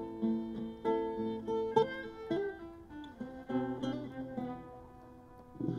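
Acoustic guitar playing a picked, strummed introduction, each note ringing and dying away; the playing grows quieter in the second half.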